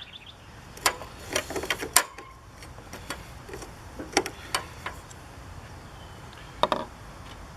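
Scattered sharp clicks and light taps of hand tools being handled around the air conditioner's metal frame, clustered in a few short runs.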